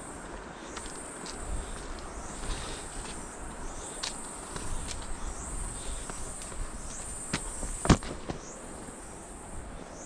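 Steady high-pitched insect drone with short rising chirps about once a second, over footsteps on a stony trail. One sharp knock about eight seconds in is the loudest sound.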